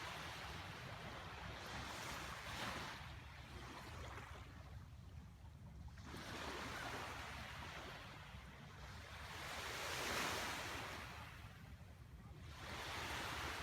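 Small waves washing in on a shoreline, faint, swelling and falling back about every three to four seconds over a low steady rumble.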